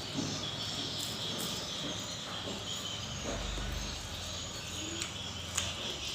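Insects chirping steadily in the background, with a few sharp clicks and mouth noises from eating.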